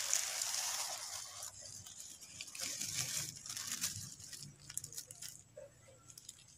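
A clear polythene sheet crinkling and rustling as it is pulled off a pot of hibiscus cuttings. It is loudest in the first second and a half, then a few softer crinkles trail off.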